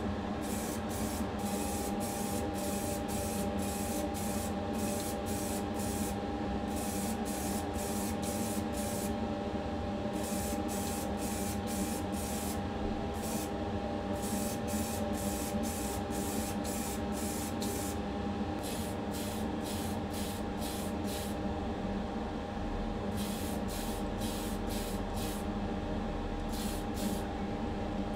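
Aerosol spray-paint can hissing in short, quick bursts, about two a second with a few brief pauses, as a model part is sprayed. A steady hum runs underneath.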